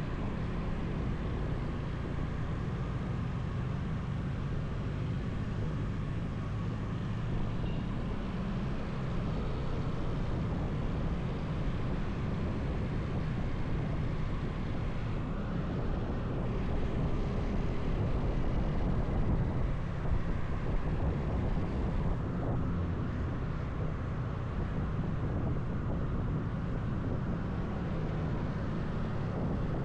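Motorcycle riding along, its engine rumbling steadily under wind noise on the action camera's microphone, a little louder for a few seconds past the middle.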